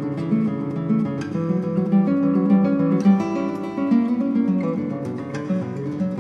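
Background music on acoustic guitar: a steady run of plucked notes and strummed chords.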